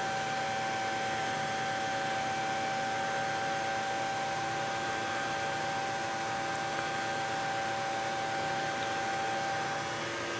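AC TIG welding arc from a Miller Dynasty 350 running on aluminum pipe: a steady hiss with a constant high-pitched hum. It eases off slightly near the end.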